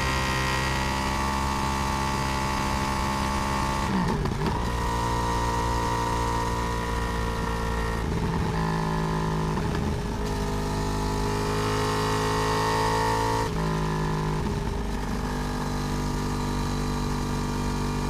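Yamaha R1 (RN22) crossplane inline-four with its uneven 'big bang' firing order, running on the road, heard close up from the swingarm. The engine holds a steady note, briefly broken and changing pitch a few times, about four, eight, ten and fourteen seconds in.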